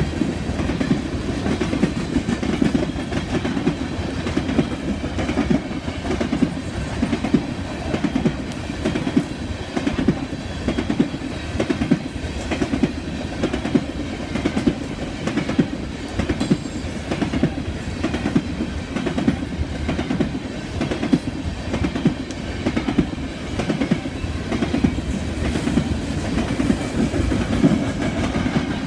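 Empty steel coal hopper cars rolling past in a steady rumble, their wheels clacking over the rail joints without a break.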